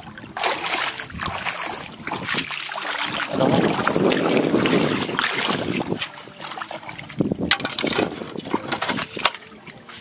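Water sloshing and splashing in and around a plastic fish tank as it is carried and set down in shallow water, with a denser stretch of splashing a few seconds in. Sharp plastic clicks and knocks come later as the tank's lid is fitted.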